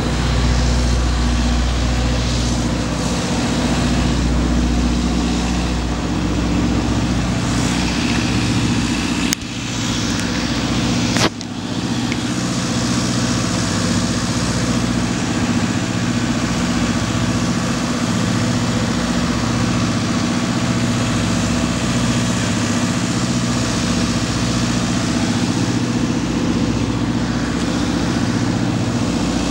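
Steady low drone of heavy engines idling: parked buses and generators running, with a slow pulsing beat in the low hum. Two sharp clicks about two seconds apart, roughly a third of the way in.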